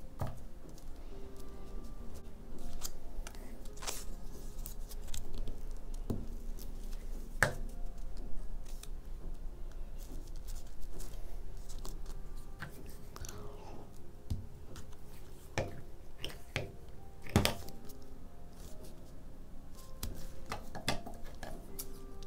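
Scissors snipping painted watercolour paper in short, irregular cuts, with the paper being handled and pressed down on the sheet between cuts.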